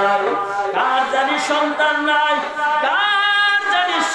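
A man's voice chanting a Bengali sermon in a sung, melodic style through a microphone, gliding between drawn-out notes and holding one long note about three seconds in.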